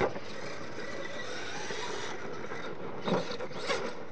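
Radio-controlled monster truck running on a dirt track, a steady motor and tyre noise. There is a sharp thump at the start and two more about three seconds in, as it bumps and lands.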